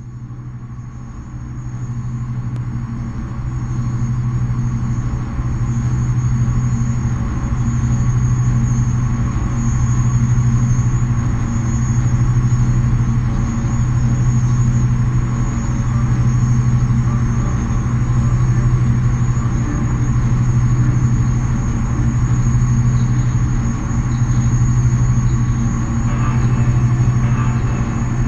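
Experimental noise drone: a dense, steady rumbling drone fades in over the first few seconds, built on a strong low hum with a thin high tone above it. It swells and ebbs slowly, about every two seconds, and a grittier crackle comes in near the end.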